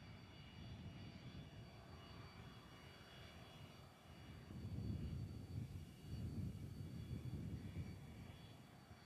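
Cessna 525 CitationJet's twin turbofan engines whining steadily as the jet turns onto the runway for takeoff. A low rumble swells about halfway through.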